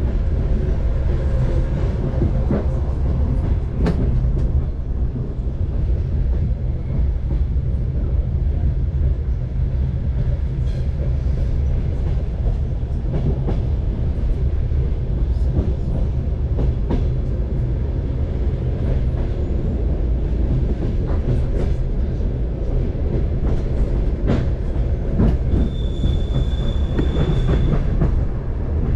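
Passenger train coach wheels rolling on the rails, heard from inside the carriage: a steady low rumble with scattered clicks of wheels over rail joints. Near the end a high wheel squeal lasts about two seconds.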